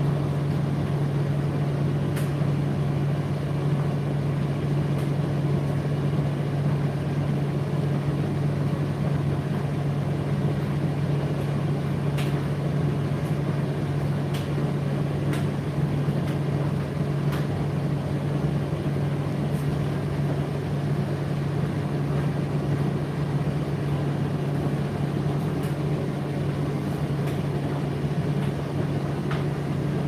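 Indesit IDC8T3 8 kg condenser tumble dryer running: a steady low motor-and-fan hum with a rushing noise, and occasional light ticks scattered through it.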